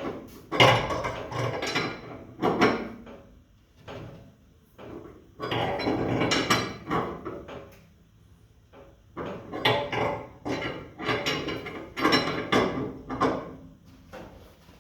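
Prototype coil spring compressor being cranked down on a rusty front coil spring, in three spells of metallic clicking and scraping.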